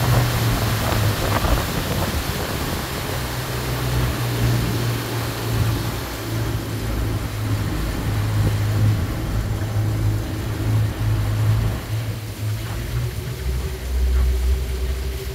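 A motorboat's engine running steadily at low cruising speed, with a low hum; about two-thirds of the way through the note drops lower and a faint steady tone comes in above it.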